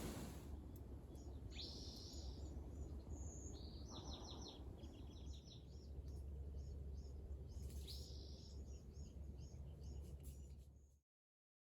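Several birds singing and calling, a run of short high chirps and quick trills, over a low steady rumble; the sound cuts off abruptly near the end.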